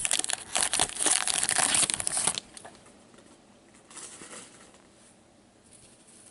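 A trading-card pack's wrapper being torn open and crinkled by hand, a dense crackling that stops about two and a half seconds in. After that, only a faint rustle of cards being handled.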